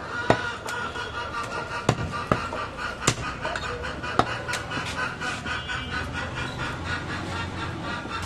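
A butcher's cleaver chopping goat meat on a wooden log chopping block: several sharp, irregularly spaced chops. A steady, high pulsing tone runs underneath.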